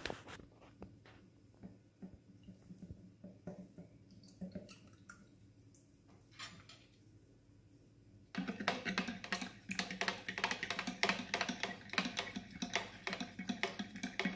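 A metal fork stirring water in a plastic measuring jug to dissolve yeast. It is faint with a few light clicks at first, then about eight seconds in turns into fast, continuous clicking and rattling of the fork against the jug.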